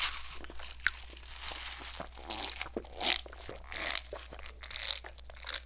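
Close-miked gulping and swallowing as a drink is taken from a plastic cup: a series of short, wet gulps in a steady rhythm, a little under a second apart.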